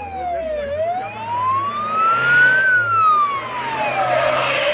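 Rally safety car's siren wailing, its pitch sliding slowly down, up and down again in sweeps of about two seconds. The car's passing noise swells under it near the end.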